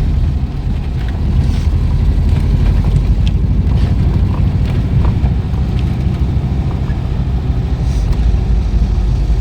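Volkswagen Kombi van driving, its engine and road noise a steady low rumble heard from inside, with a few faint ticks.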